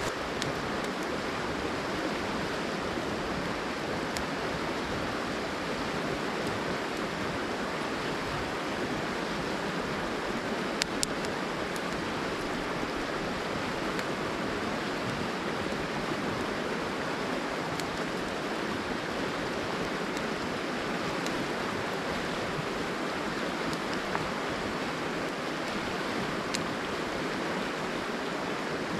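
A river running over a gravel and stone bed: a steady, even rush of water. A couple of short sharp clicks come about eleven seconds in.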